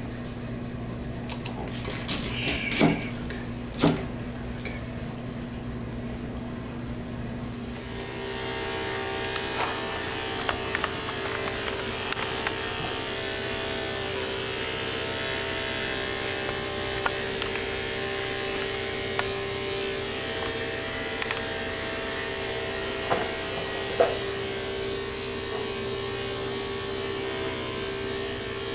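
Corded electric dog-grooming clippers switch on about a quarter of the way in and run with a steady buzz while clipping a toy poodle's coat. Before they start there is a lower steady hum and a couple of short sharp sounds, and two more sharp sounds come near the end.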